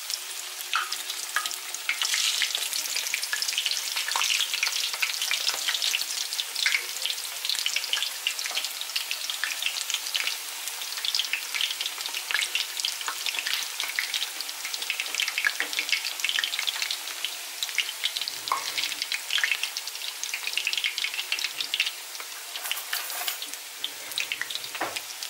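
Striped-peeled eggplant halves frying in hot oil in a pan: a steady sizzle thick with fine crackling pops, with a couple of brief soft knocks in the second half.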